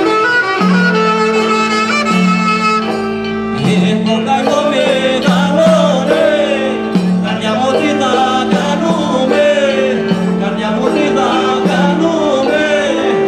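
Live Albanian folk dance music led by a clarinet over a steady low drone. About four seconds in, a wavering, ornamented melody comes in, with singing.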